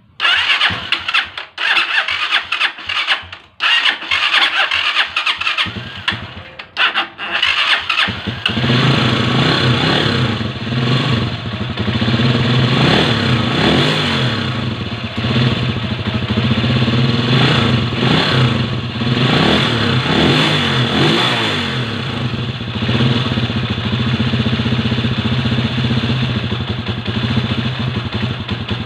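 Air-cooled single-cylinder motorcycle engine, freshly rebuilt with a new piston and rings, being started: several stuttering attempts that catch and die, then it fires about eight seconds in and runs steadily, with a few blips of the throttle. It runs without the engine rattle it was rebuilt to cure.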